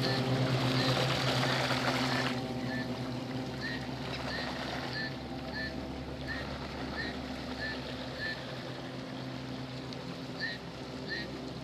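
Radio-controlled model range safety launch running on the water: a steady motor hum with loud water rush for the first two seconds or so while the boat is close, then quieter as it moves off. A short high chirp repeats about every second or less through most of it.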